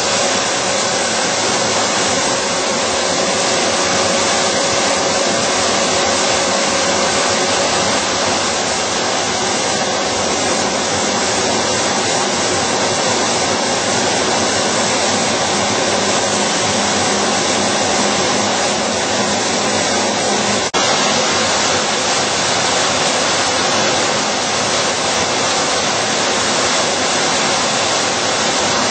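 Dahlstrom steel coil slitting line running: a loud, steady mechanical noise with a faint hum in it, from strip steel passing through the slitter and rewinding on the recoiler. A single sharp click comes about three-quarters of the way through.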